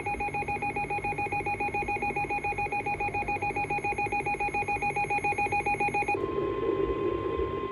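Weather radio alert: a rapidly pulsing, buzzy electronic alarm tone at about eight beeps a second. About six seconds in it gives way to the steady 1050 Hz NOAA Weather Radio warning alarm tone, which marks the start of the tornado warning broadcast.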